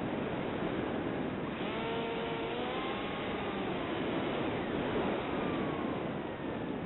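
Wind rushing over the onboard camera microphone of a Bixler FPV model plane in flight, a steady hiss. A faint electric-motor whine rises in pitch about two seconds in and falls again near the end.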